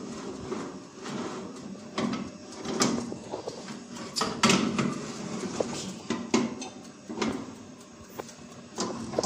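Metal baking tray being slid onto the wire rack of a countertop oven and shifted about, giving a string of separate scrapes, clicks and knocks.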